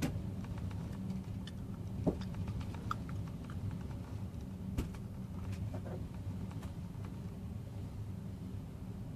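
Gale-force wind buffeting the microphone as a steady low rumble, with scattered light ticks and taps.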